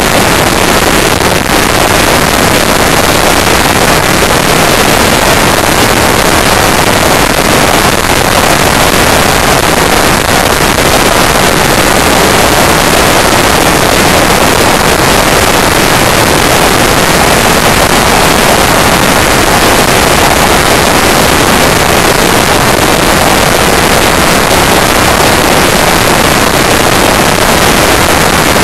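Steady, loud rush of wind and road noise from a Honda Deauville NT650V motorcycle travelling at motorway speed.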